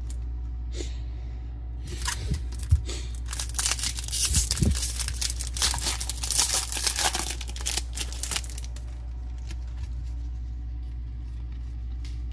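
Wrapper of a Topps Series 1 baseball card hobby pack being torn open by hand. A run of crackling, crinkling tears starts about two seconds in and stops about six seconds later.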